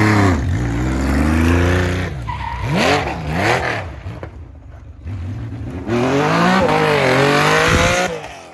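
Rally car engine revving hard on a stage, revs climbing and dropping sharply through gear changes and lifts, with some tyre squeal. The engine goes quieter for a moment in the middle, then revs loudly again before cutting off abruptly near the end.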